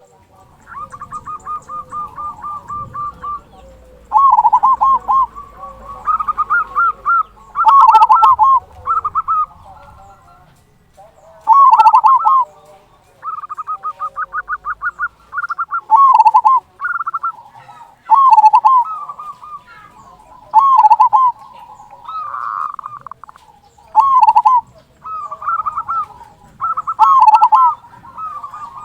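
Local zebra dove (perkutut) singing its cooing phrases over and over: a quick rattling run of short notes, then loud bent coos, the deep 'kung' that ends the phrase.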